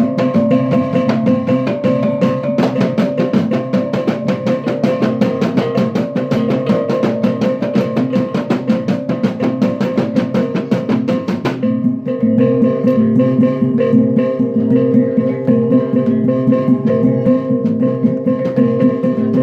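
Gong ensemble music: tuned gongs and a drum play a steady, fast interlocking beat with ringing gong tones. About 11.5 seconds in, the dense sharp clattering strokes stop and the gong tones carry on.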